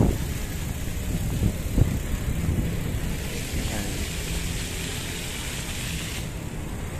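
Wind rumbling on a handheld phone's microphone, with faint voices of passers-by about halfway through.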